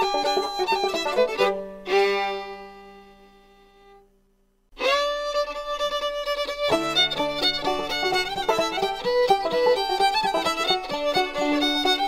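Instrumental background music. About two seconds in it stops on a held chord that fades to near silence, and the tune starts again just before five seconds in.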